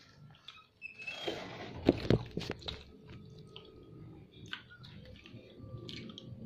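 Eating sounds: a few sharp knocks and clicks about two seconds in, then lighter clicks of a spoon in a bowl and chewing.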